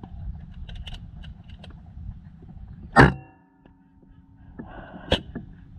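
Wind rumbling on the microphone, then a single sharp air rifle shot about three seconds in with a short metallic ring. Near the end a wounded duck splashes on the water, with another sharp click.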